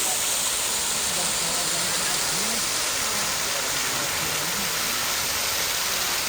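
Kursunlu waterfall rushing, a steady, even roar of falling water, with faint voices underneath.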